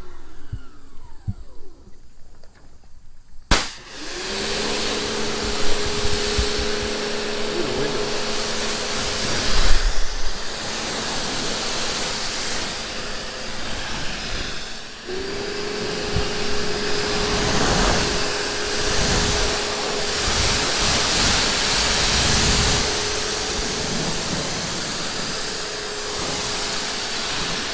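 Electric pressure washer rinsing a car. For the first few seconds its motor winds down and is quieter. A click follows, and the motor starts and runs with a steady hum under the hiss of the water spray. About halfway through it cuts out briefly and starts again.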